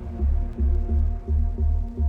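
Background music: a pulsing bass beat with soft, sustained tones above it.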